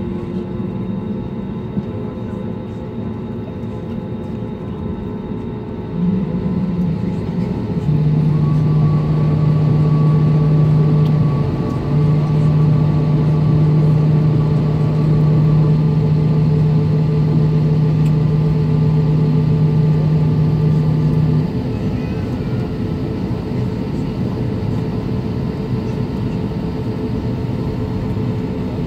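Steady cabin noise aboard an Airbus A320neo on the ground. About six seconds in, a loud, steady low hum from the aircraft's systems starts, breaks once briefly, and cuts off suddenly about two-thirds of the way through.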